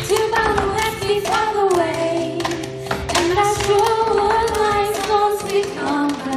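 Girls singing a melody over a cup-game rhythm: red plastic cups tapped, slapped down on the stage floor and passed along, with hand claps, several sharp hits a second.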